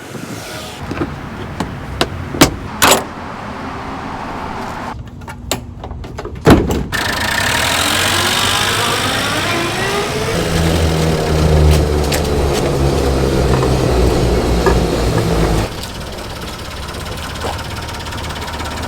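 Honda Acty kei van: a few sharp clicks and knocks, then a loud door slam, followed by the engine running and rising in pitch as it revs, with a heavy low rumble that cuts off suddenly about two-thirds of the way through.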